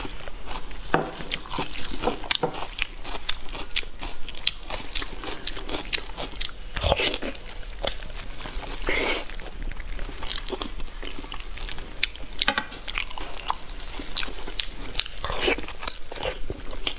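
Close-up eating of pork knuckle: biting, chewing and wet smacking of the mouth as meat is pulled off the bone, made of many short sharp clicks with a few longer, louder mouth sounds.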